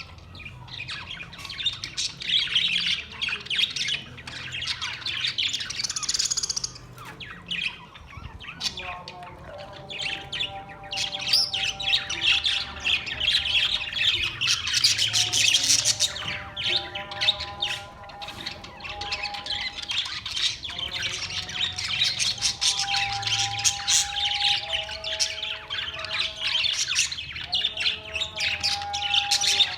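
A group of budgerigars chattering continuously with rapid chirps, warbles and squawks.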